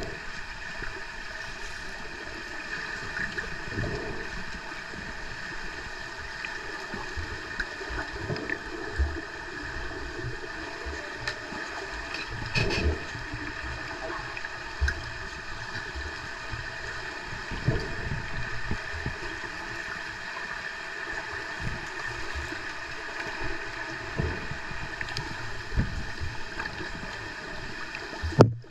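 Underwater pool sound picked up by a submerged camera: a steady hiss with several fixed tones running under it, dotted with dull knocks and clicks every few seconds from the underwater hockey play. Near the end comes one loud thump as a player swims right over the camera.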